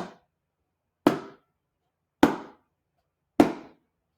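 A slow, even beat of single percussive strikes, about one every 1.2 seconds, each dying away quickly.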